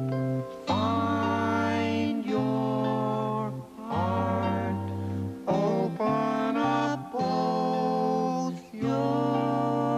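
Voices singing a slow song in long held notes, over plucked acoustic guitar.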